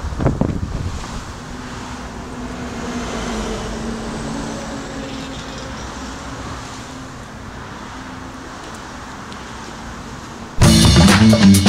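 Road traffic noise with a passing car's engine hum, after a few sharp knocks in the first second. About a second before the end, a loud song with electric guitar and drums cuts in suddenly.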